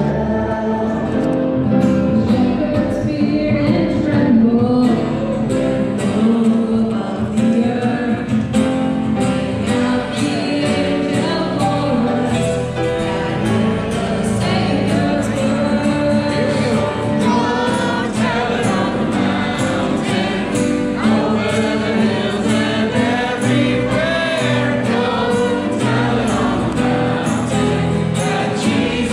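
Choir singing gospel-style music with accompaniment over a steady beat of about two strokes a second.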